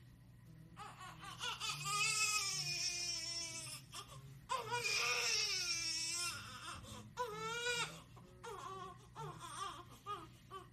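Newborn baby crying: three long wailing cries over the first eight seconds, then shorter, weaker whimpering cries.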